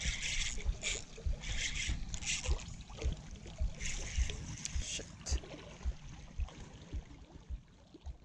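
Wind and handling noise on a body-worn camera's microphone: irregular bursts of hiss with dull low thumps, dying down near the end.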